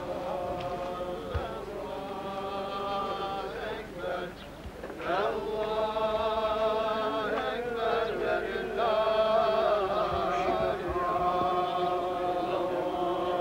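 A group of men's voices chanting an Islamic devotional chant in unison, on long held notes that step from pitch to pitch. About four seconds in the chanting thins out and breaks off briefly, then comes back louder.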